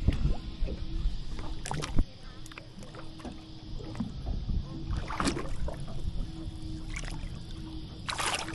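Small boat afloat: water slapping and rumbling against the hull, with scattered knocks and clicks of gear against the boat and a louder rush of noise near the end.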